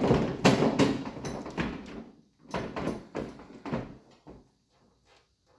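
Plastic end cap being pushed and worked onto the end of a ceiling light fixture's diffuser cover: a quick run of scraping knocks for about two seconds, a short pause, then several more knocks that die away.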